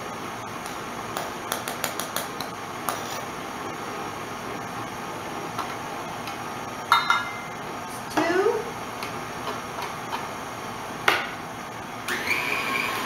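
KitchenAid stand mixer's motor running steadily on low. Over it come a quick run of light taps a second or two in and a few sharper clinks later from a metal measuring cup and knife as flour is scooped, levelled and tipped into the mixer bowl.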